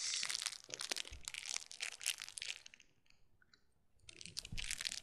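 Close rustling and crinkling handling noise, a dense run of quick crackles that stops for about a second past the middle and then starts again near the end.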